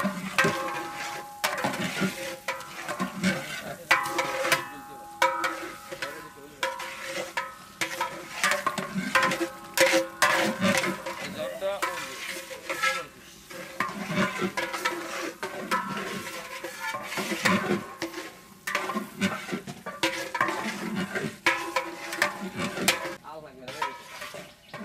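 Long metal ladle stirring thick tomato chutney in a large aluminium cooking pot over a wood fire, scraping the bottom and knocking against the pot's sides again and again.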